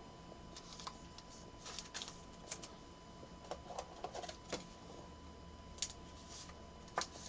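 Faint, irregular clicks and rustles of trading cards and plastic card holders being handled, with a faint steady tone in the background.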